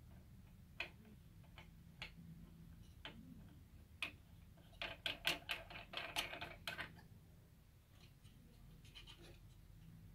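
Plastic clicks and ticks as a plastic fan holder cap is turned by hand and screwed onto the fan hub of a Balmuda AirEngine air purifier. A few single clicks come first, then a quick run of clicks near the middle, then a few more.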